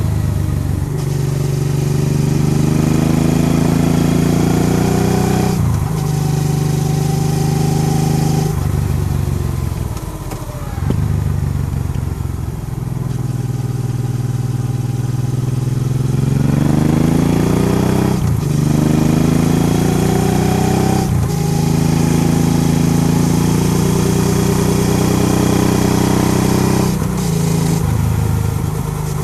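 Motorcycle engine under way, its pitch climbing with the revs and dropping sharply at several gear changes, with a stretch of easing off and falling revs around the middle. Wind and road noise run underneath.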